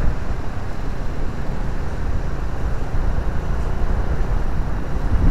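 Scooter riding along at speed: a steady low rumble of wind and road noise on the microphone, with the scooter's engine running underneath.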